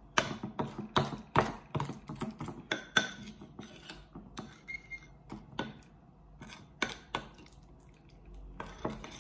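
Metal spoon stirring a thick clay paste in a ceramic bowl, with quick repeated clinks and scrapes against the bowl that thin out after about four seconds.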